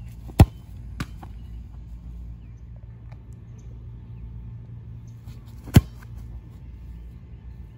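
Two hard kicks of a soccer ball about five seconds apart, each a single sharp thud, with a fainter knock about half a second after the first. A steady low rumble runs underneath.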